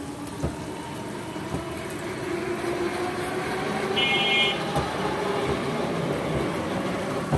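A motor vehicle passing on the street: its engine rises in pitch and loudness, then eases off. A short high horn beep sounds about four seconds in, over the steady sizzle of puris frying in a wok of oil.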